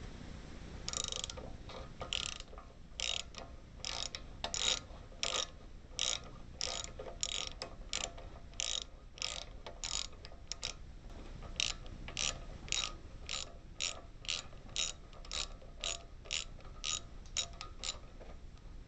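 3/8-drive ratchet clicking on each back-stroke as it turns a 9/16 socket on a long extension, backing out a bench grinder's mounting bolt. The bursts of clicks come about twice a second, with a brief pause about halfway.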